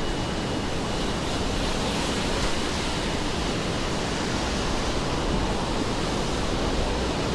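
Steady rainfall on wet city pavement: an even, continuous hiss with no distinct events.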